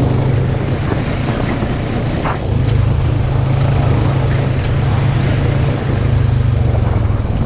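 Side-by-side off-road vehicle's engine running steadily at an even, unchanging speed.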